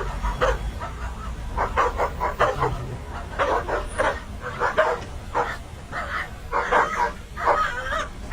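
A dog barking and yipping in a long run of short, irregular calls.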